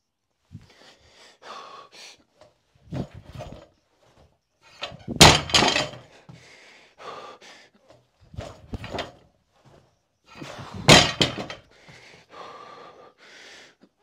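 Bumper-plated barbell, loaded to 70 kg, set down hard onto a rubber gym mat twice, about six seconds apart, between power clean reps. Each landing is a loud, sharp thud with a brief ring of the plates. Quieter knocks of the bar come in between.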